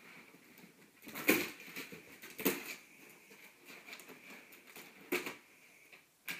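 Packing material rustling and crinkling as it is pulled and handled in a cardboard box, with a few louder crackles.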